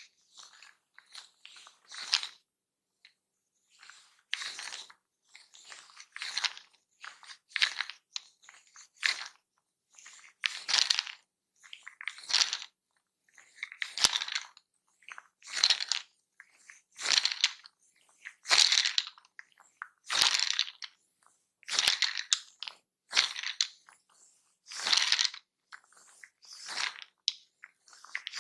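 Close-miked massage strokes: a run of rough, crackling rubbing sounds about once every one to two seconds, a few of them starting with a sharp click.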